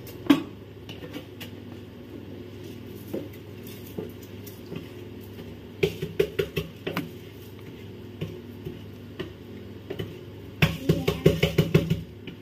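A ladle scraping and knocking soaked rice out of a plastic basket into a steel pressure cooker: a sharp knock just after the start, scattered clicks, then a quick even run of scrapes and taps near the end.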